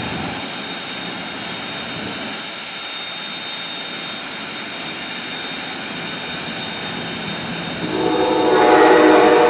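Steam locomotive (Granite Rock Company #10, an 0-6-0 tank engine) standing in steam on a turntable: a steady hiss with a thin high whine. About eight seconds in, a loud pitched tone with many overtones swells for about a second and a half.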